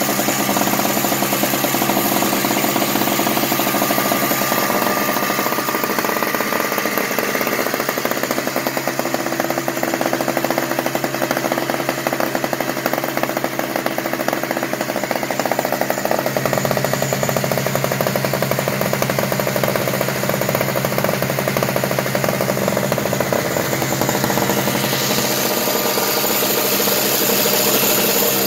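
Craftsman 5 hp two-stroke snow blower engine running after a cold start, its pitch shifting slightly a few times.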